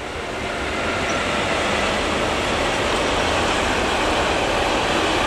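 A BLS Cargo electric locomotive and its intermodal freight train of trailers and containers rolling past, with a steady noise of wheels on rails. It grows louder over the first two seconds as the locomotive comes by, then holds steady as the wagons pass.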